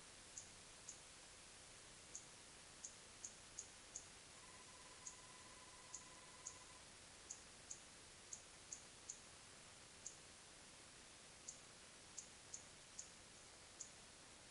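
Near silence: steady hiss of a trail camera's microphone. Faint, short, high-pitched ticks come at irregular intervals, roughly one or two a second, and a faint steady tone is held for a couple of seconds near the middle.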